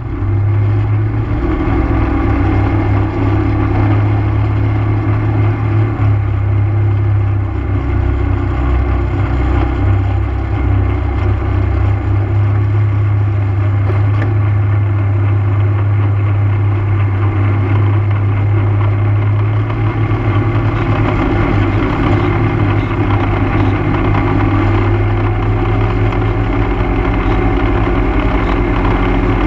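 ATV engine running steadily at cruising speed, a low even drone whose pitch shifts slightly about 25 seconds in.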